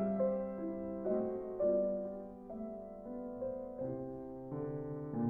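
Slow, soft piano music: single notes and chords starting one after another and fading away.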